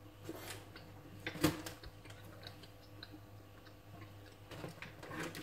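Faint, scattered clicks and crinkles of a snack packet being handled, with one sharper click about a second and a half in.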